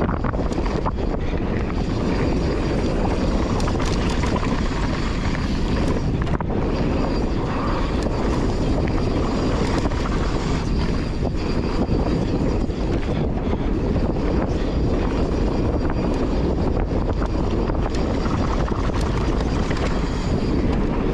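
Wind rushing over an action camera's microphone mixed with mountain bike tires rolling over dry dirt singletrack at speed, a steady roar with scattered light clicks and rattles.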